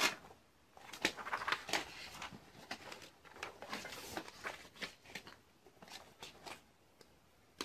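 Faint, irregular light taps and scratchy rustles, several a second with short gaps, from small objects being handled close to the microphone.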